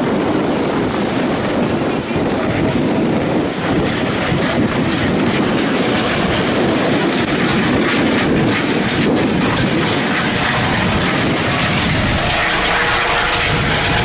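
Eurocopter EC 135 helicopter flying over, its rotor and twin turbines making a loud, steady noise, mixed with wind noise.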